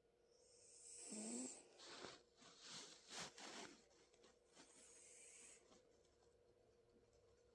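A sleeping pet snoring softly: a hissing in-breath with a brief low snore about a second in, a fluttering breath after it, and another hissing breath around five seconds in.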